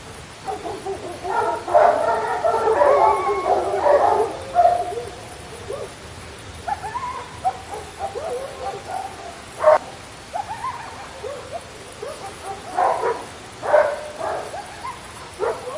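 Several dogs howling and yipping together: a dense chorus of overlapping, wavering howls in the first few seconds, then scattered short yips and barks.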